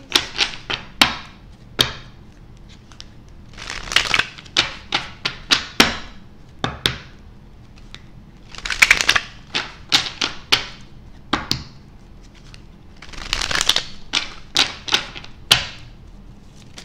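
A deck of tarot cards being shuffled by hand. Each round starts with a rustling rush of cards sliding over each other, then a quick run of sharp clicks as cards snap against the deck, three times over.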